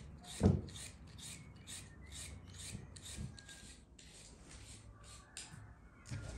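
Repeated scraping strokes, about two to three a second, with one dull thump about half a second in.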